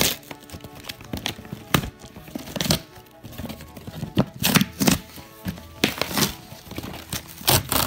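Cardboard box being torn open by hand: a string of short rips and crinkles, with a longer, louder rip near the end. Background music plays underneath.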